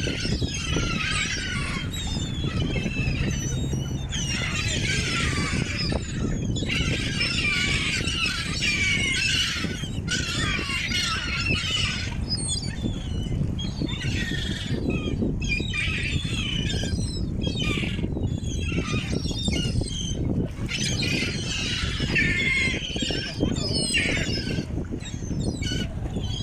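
A flock of gulls calling: many shrill, squealing cries overlapping continuously, as when gulls crowd in to be fed, over a steady low rumble.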